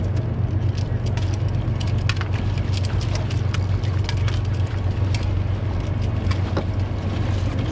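Boat motor running steadily with a low, constant hum, with scattered light clicks and knocks over it.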